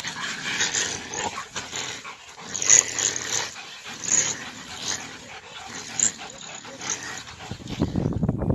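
Dog-like animal calls, harsh and irregular, in short bursts. Near the end they give way to a steady low rumbling noise.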